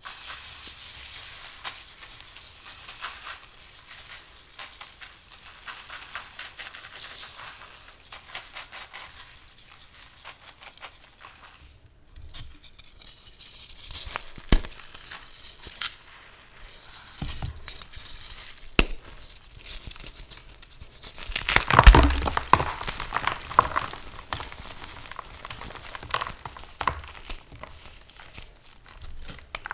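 Dyed gym chalk blocks crushed by hand: fine crackling and crunching, then sharp snaps as the blocks break. The loudest crack and crumble comes about 22 seconds in.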